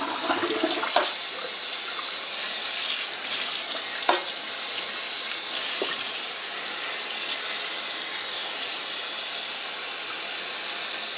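Bathroom sink tap running steadily into the basin, with a few light knocks.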